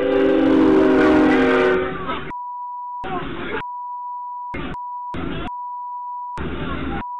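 A train horn blowing a loud sustained chord, picked up inside the stopped school bus as the train passes the crossing, until about two seconds in. After that a steady high censor beep covers most of the audio, broken several times by short stretches of noise and voices inside the bus.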